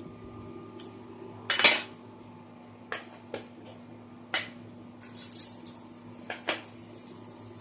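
Hard clinks and taps of ceramic bearings and their loose silicon nitride balls being handled. There are a few separate sharp clicks, the loudest about a second and a half in, and a light rattling near the end.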